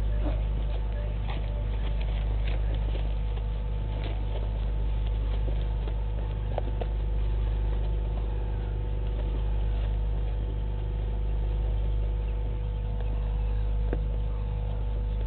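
A steady low electrical hum with faint steady tones above it, and scattered small clicks and rustles over it.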